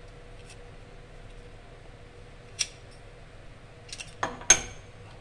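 Scattered light clicks and clinks of an aluminum dental stock tray being handled and bent by hand over a stone cast: a few single clicks, then a quick run of clinks about four seconds in, the loudest with a short metallic ring.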